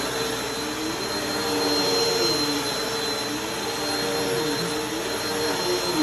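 Bissell upright vacuum cleaner running on carpet with a steady high whine and rushing air, its lower motor hum dipping in pitch and recovering every second or two.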